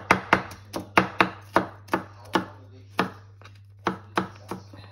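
A large kitchen knife chopping chillies on a thin plastic cutting mat: quick sharp knocks about three or four a second, with a short pause a little past three seconds in.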